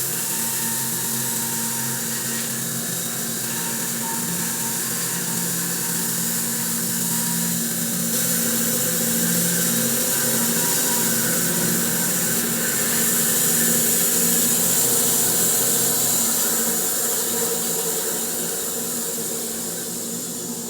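Electric bandsaw mill sawing through a spalted maple log with a carbide-tipped blade: a steady motor hum under a dense hiss of cutting. It grows louder through the middle of the cut and tapers off near the end.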